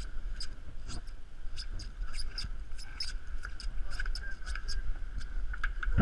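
Irregular squeaks and light ticks, several a second, from the harness hardware and the halyard working through the mast rigging as a crew member is lowered down a yacht's mast, over a steady low wind rumble.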